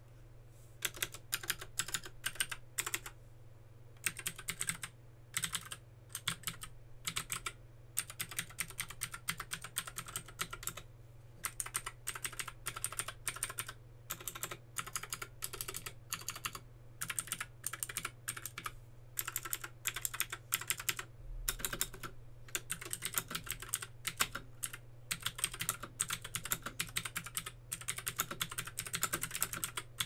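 Keychron K6 wireless mechanical keyboard with red linear switches being typed on: rapid runs of keystroke clacks in bursts, broken by short pauses.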